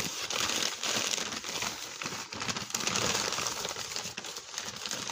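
Continuous crinkling and rustling of packaging being handled.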